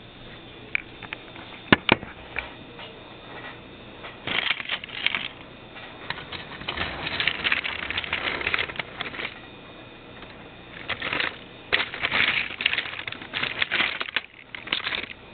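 Battery-powered Tomy plastic toy trains clattering along plastic track: a rattly clicking that comes and goes in stretches, with a couple of sharp plastic clacks about two seconds in.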